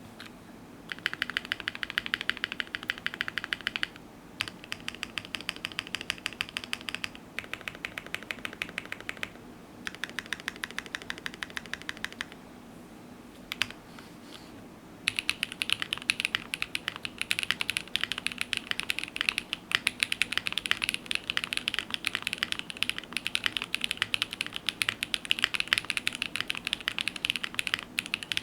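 Fast typing on a Kawayo mechanical keyboard: lubed Gateron Soldark switches on a top-mounted polypropylene plate with no foam, under GMK Katakana keycaps. Four bursts of rapid keystrokes with short pauses between them, a quiet stretch with a couple of single keystrokes, then a long unbroken run of fast typing.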